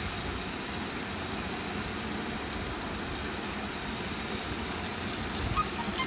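Sliced onions, garlic, green chillies and freshly added chopped tomato sizzling steadily in hot oil in a nonstick frying pan.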